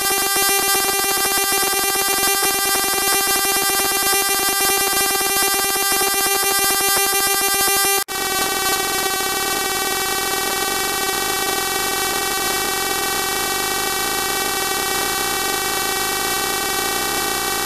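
Harsh electronic buzzing tone from an NE555 timer circuit wired into chaotic oscillation. It holds steady, then about eight seconds in it cuts out for an instant and jumps to a different tone pattern.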